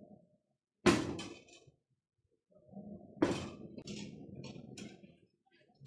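Two sharp knocks, about two and a half seconds apart, as a metal-framed mechanical candy vending machine is set down onto its mounting box, each followed by a brief rattle. Low handling noise runs between and after the second knock.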